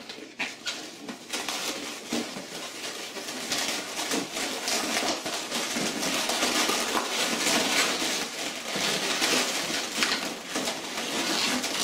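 Inflated latex 260 twisting balloons squeaking and rubbing against each other as hands twist a balloon tail and tie it onto a balloon figure. It is a dense, unbroken run of squeaks and scrapes that grows busier after the first few seconds.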